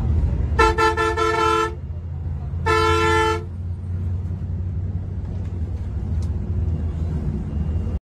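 Bus horn sounding twice, a blast of about a second and then a shorter one, each a chord of several steady tones. Under it runs the steady low rumble of the bus's engine and road noise in the driver's cab.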